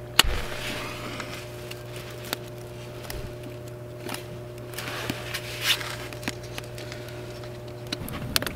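Dry grass and stick kindling catching fire, with scattered sharp crackles and rustles and one louder sharp click just after the start, over a steady low hum that stops near the end.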